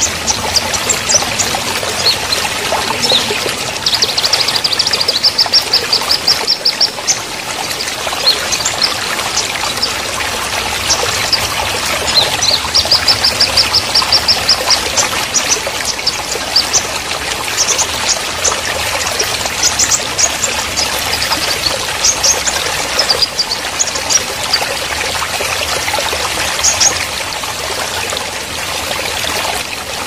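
Shallow rocky stream rushing and babbling over stones. Over it a bird chirps, with two longer runs of quick, evenly repeated high notes and scattered single chirps.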